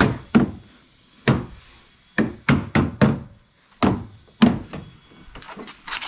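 Rubber mallet striking the plastic inner panel of a Honda Ridgeline tailgate to seat its retaining clips: about nine dull thunks at an uneven pace, with a few light ticks near the end.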